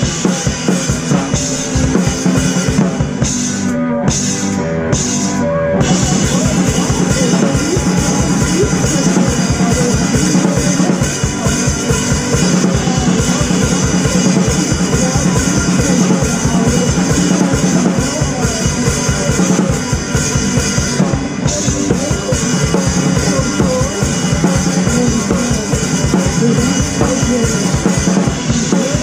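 Loud rock music with a full drum kit, kick drum and snare driving a steady beat. Three quick stop-hits where the cymbals drop out come about four to six seconds in.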